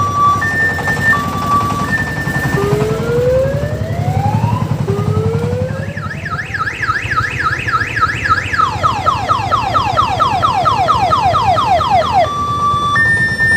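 A mini tourist train's electronic siren cycling through its patterns: an alternating hi-lo two-tone, two slow rising wails from about three seconds in, a fast yelp from about six seconds in, then a faster falling warble, and back to the hi-lo near the end. Underneath, the train's crank-start diesel engine runs with a steady low throb.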